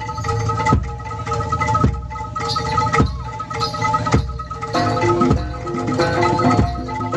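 Live gamelan-style ensemble music: ringing tuned metal mallet percussion over held tones, with a drum struck about once a second.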